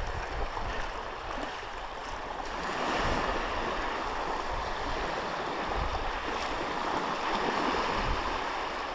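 Sea surf washing onto the beach in a steady rush, swelling louder from about three seconds in.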